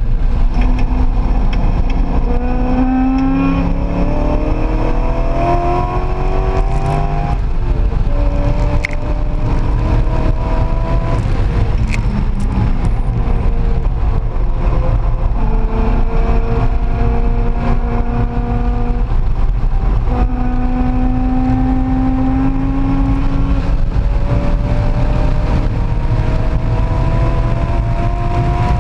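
Chevrolet Corvette's V8 heard from inside the cabin while driven hard on track: the revs climb steadily several times under throttle and drop away between climbs on shifts and lifts, over steady loud wind and road noise, with a few short clicks.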